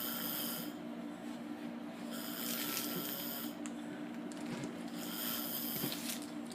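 Snoring: three breathy snores, each about a second long and coming roughly every two and a half seconds, over a steady low hum.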